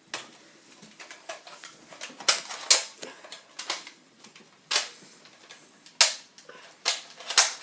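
Nerf Elite Strongarm foam-dart blaster being primed and fired: a string of sharp plastic clacks and pops, some in quick pairs, with fainter ticks of the slide and rotating cylinder between them.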